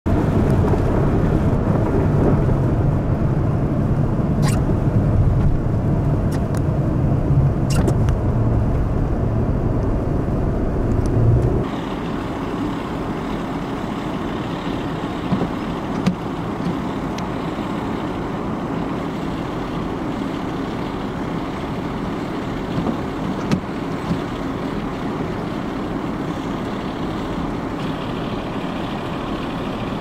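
Blizzard wind and vehicle noise. A heavy, steady low rumble drops away suddenly at a cut about twelve seconds in, leaving an even hiss of wind-driven snow. A few sharp clicks come in the first part.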